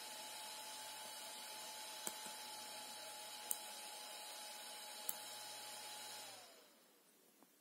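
Small cooling fan on a USB electronic load running steadily with a faint whir, with three light clicks of its buttons being pressed. About six seconds in the fan winds down, its pitch falling, as the power drops while the charger switches to a Quick Charge 2.0 higher voltage.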